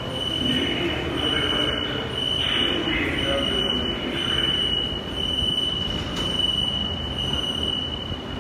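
An 81-722.1 "Yubileyny" metro train standing at the platform: a steady high tone sounds over the low hum of the train's equipment, and it cuts off near the end as the doors close.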